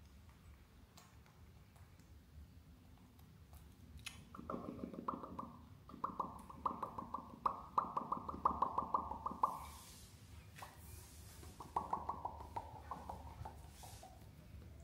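Young macaque monkey calling in quick runs of short, squeaky cries, several a second: one run of about five seconds starting about four seconds in, then a shorter run that slides lower in pitch and trails off.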